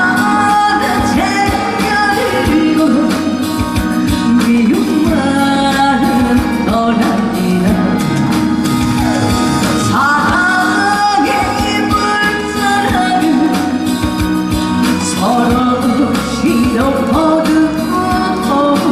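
A singer performing live over loud amplified backing music.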